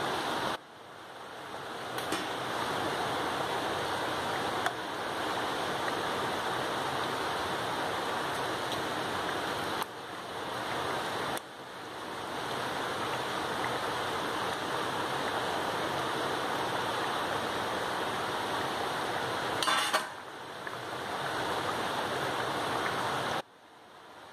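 Steady, water-like rushing hiss, with a few light clicks of a metal ladle against a frying pan.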